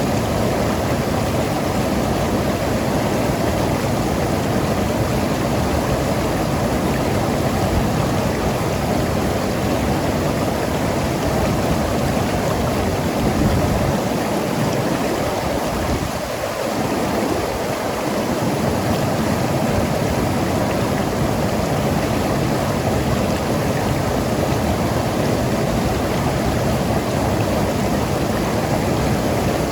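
Mountain river flowing and gurgling over rocks, a steady rush of water. Its low rumble thins briefly about halfway through.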